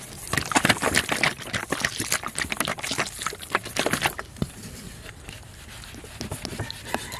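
Liquid poured from a bottle pattering onto a steel bowl of rice-and-crumb fish bait: a dense run of small splashes and clicks for about four seconds, then only a few scattered clicks.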